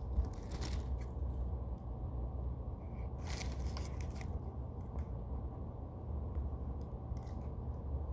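Scissors cutting into a foam squishy: two short rasping cuts, one about half a second in and a longer one around three seconds in, with a few light clicks, over a steady low hum.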